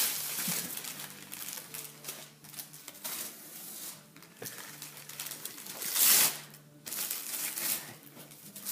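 Gift wrapping paper rustling, crinkling and tearing as a present is unwrapped, with a louder rip about six seconds in.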